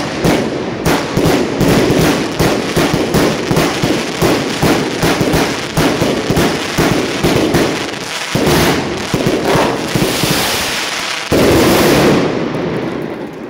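Box-cake fireworks (fuochi a cassetta) firing a rapid volley of aerial shell bursts, about four bangs a second. The last few seconds turn into a dense, near-continuous crackling barrage, loudest just before it dies away near the end.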